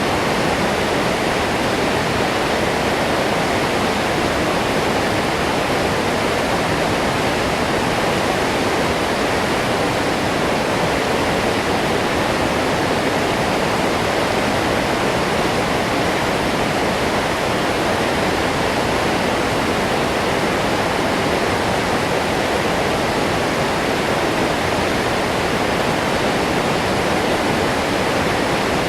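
Medium-sized waterfall: the steady, unbroken rush of falling water.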